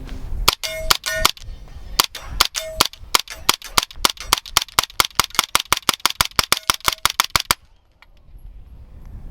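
Suppressed 9mm SIG MPX carbine firing through an AAC Ti-Rant 9 suppressor: about thirty shots. A few spaced shots come first, then a fast steady string of about four to five a second that stops about seven and a half seconds in. A short ring follows a few of the shots.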